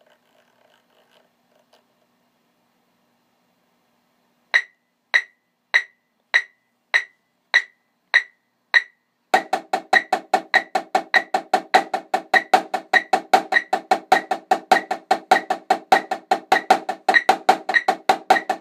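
Yamaha marching snare drum played with sticks. About four and a half seconds in come eight single, high-pitched strokes about 0.6 s apart. From about nine seconds in, a fast, steady stream of strokes follows, with accented hits about every half second.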